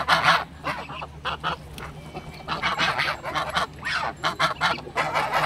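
Flock of domestic grey geese honking in short, harsh, rapid calls that sound like barking, several birds at once, with a brief lull about two seconds in.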